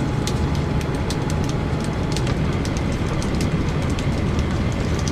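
Wind buffeting the microphone as a steady low rumble over the wash of surf, with scattered faint ticks.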